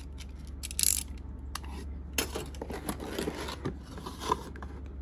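Snap-off utility knife clicking and scraping against a cardboard box as it is cut open, then the lid lifted and the bagged plastic kit parts inside handled, with a sharp knock a little after four seconds in.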